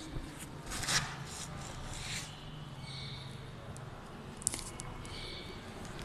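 Quiet room tone with scattered small knocks and rustles, the sharpest about a second in and again near the middle, and a few brief high chirps.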